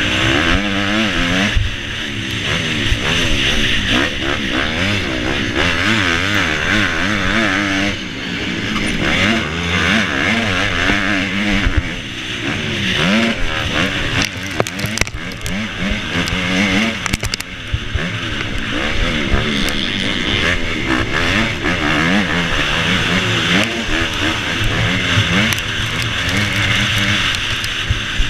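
250cc four-stroke motocross bike at race pace, heard from the rider's helmet camera: the engine revs rise and fall over and over with throttle and gear changes. A steady rush of wind noise and scattered clicks and knocks run under it.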